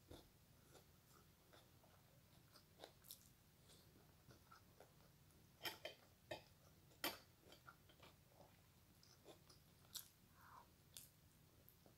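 Faint chewing and mouth sounds of a person eating, with scattered soft clicks and smacks, a few a little louder around the middle and near the end.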